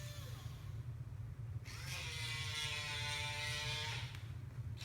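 Small gear motors of an OWI robot arm whining as its joints move under remote control: a short whine that stops just after the start, then a louder, longer one from a couple of seconds in until near the end.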